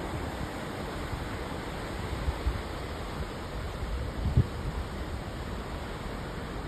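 Steady rush of wind and sea water heard from the deck of a moving ferry, with brief low buffets of wind on the microphone about two and four seconds in.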